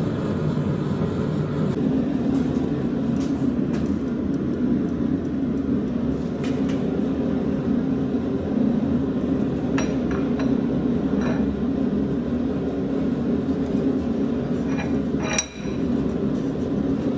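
Steady low roar of a blacksmith's forge heating the bar, with a few faint metallic clinks now and then.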